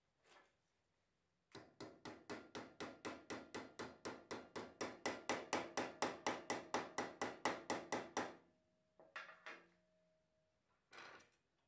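Hammer tapping rapidly, about four or five blows a second for some seven seconds, bending a brass rod over flat against the steel jaws of a bench vise. A few separate knocks follow near the end.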